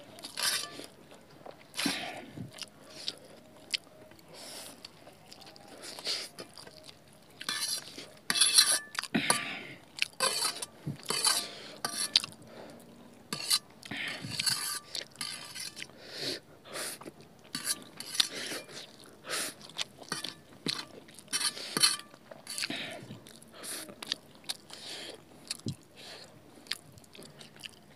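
Eating at close range: a fork clinking and scraping on a stainless-steel plate, with chewing of Maggi noodles and parotha in many short, irregular clicks.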